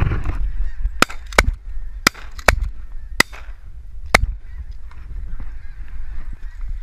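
A flock of geese honking overhead while shotguns fire six quick blasts, the first about a second in and the last about four seconds in.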